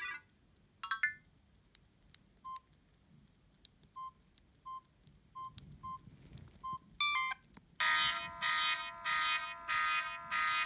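Samsung GT-E1170 mobile phone's speaker: two short chirps, then a handful of short single key beeps, then a ringtone starting in loud repeating pulses, a little under a second apart, that stops abruptly.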